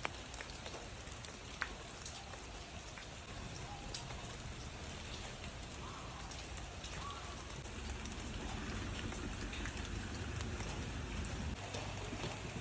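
Steady light rain falling, with scattered sharp drips standing out and a low rumble that grows a little louder about eight seconds in.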